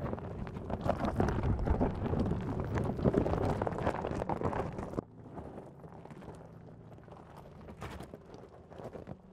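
Tyres of an electric Mercedes G580 crunching over a loose gravel and rock track, with many small stone pops and clicks. The sound drops sharply about five seconds in and goes on quieter with scattered crunches.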